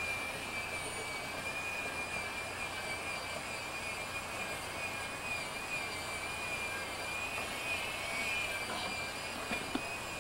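Steady hiss with a thin high whine that wavers slightly in pitch: the camcorder's built-in microphone picking up its own running tape mechanism and recording noise.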